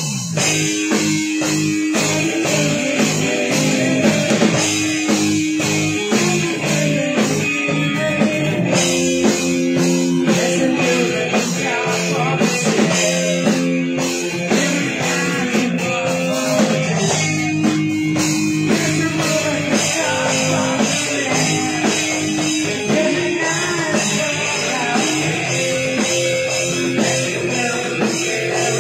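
An amateur rock band playing live through small amplifiers: electric bass, guitar and a drum kit keeping a steady beat, with a singer on a microphone.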